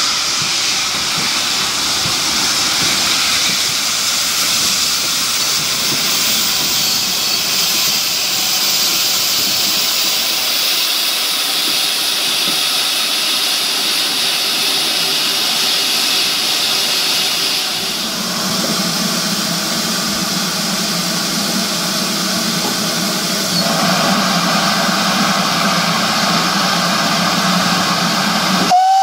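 Steam hissing steadily from GWR Modified Hall 4-6-0 No. 6960 Raveningham Hall as it stands. The hiss shifts in tone about ten, eighteen and twenty-four seconds in.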